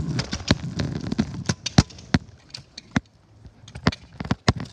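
A run of sharp, irregular clicks and knocks, roughly three a second, over a low rumble that fades after about two seconds.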